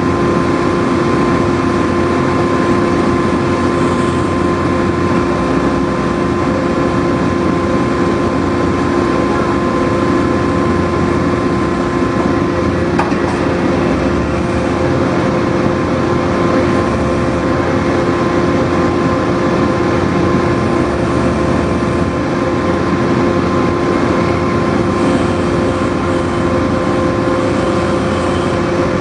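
Heavy drilling machine running steadily: a constant loud engine drone with a steady whine held at one pitch throughout.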